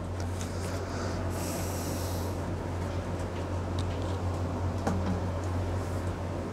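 Steady low hum under faint background noise, with a short hiss about a second and a half in and a few faint clicks.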